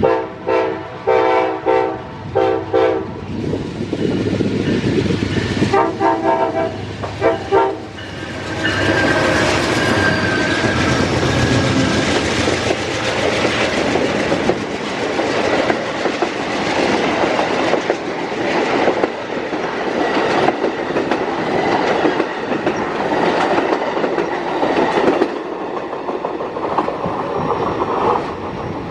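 Amtrak passenger train's multi-tone horn sounding a string of short blasts, then three more about six seconds in, before the train passes at speed from about eight seconds in with a loud rush of wheels and clickety-clack over the rail joints.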